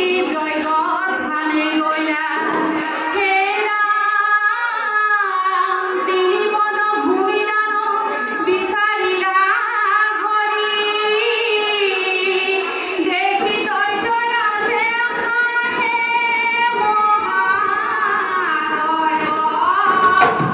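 A group of women singing an Assamese dihanaam devotional song together in long, melodic held lines, with no instruments.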